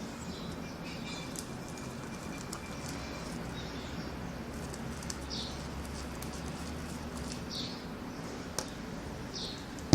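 Slime being mixed and kneaded by hand after borax water is added, giving a few soft, sticky squelches over a steady low hum.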